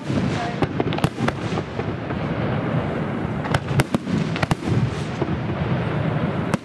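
Aerial firework shells bursting in a display, with repeated sharp bangs at irregular intervals and a quick cluster of them about midway, over a continuous dense rumble of further bursts and echoes.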